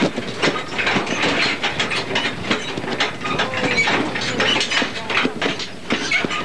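Open-sided safari truck driving over rough ground, its body and fittings rattling and clattering with dense knocks throughout.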